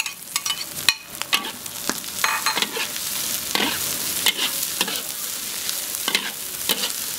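Chopped pickled radish greens sizzling as they hit hot oil in an iron wok and are stir-fried, with the metal spatula repeatedly scraping and clacking against the wok. The sizzle settles into a steadier hiss from about three seconds in.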